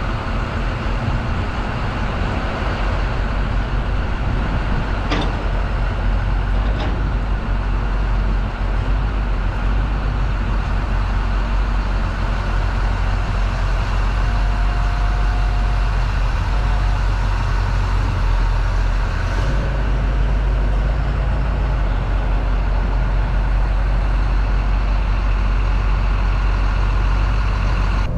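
Heavy plow truck's engine running with a steady low rumble as the truck is driven forward and backed up.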